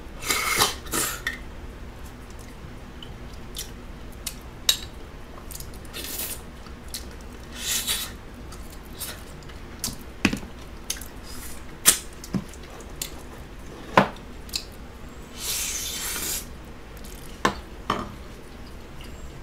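Close-miked eating sounds: wet chewing and mouth noises in short bursts, with sharp clicks of a spoon and fingers against plastic food containers.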